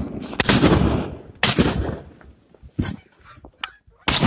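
Shotguns fired at geese passing overhead: loud blasts about half a second in, at about a second and a half and near the end, with two fainter shots in between. Geese are honking.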